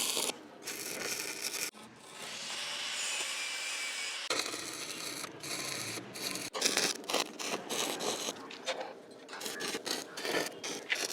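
Scraping and rubbing with irregular knocks and clicks, as in handling and working metal, with a steady hiss for about two seconds near the start.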